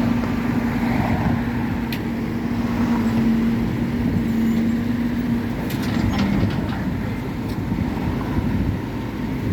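Heavy diesel engine running steadily, with a constant low rumble and a steady hum that fades out about five and a half seconds in; a few sharp clicks sound through it.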